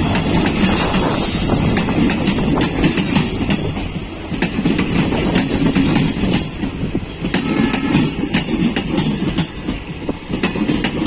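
Passenger express train passing at speed, with a steady rumble and the wheels clattering over rail joints.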